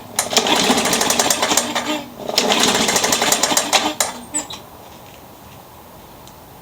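Newer Briggs & Stratton lawnmower engine running with a rapid knock, dipping briefly twice, then cutting off about four seconds in. The engine had been seized, and the owner is sure the noise is internal knocking rather than the blade hitting the deck.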